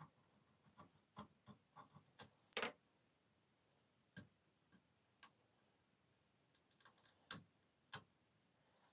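Faint, sparse clicks and short scrapes of a knife blade trimming masking tape along a steel hatchet head and fingers pressing the tape down; the loudest, a brief scrape, comes about two and a half seconds in.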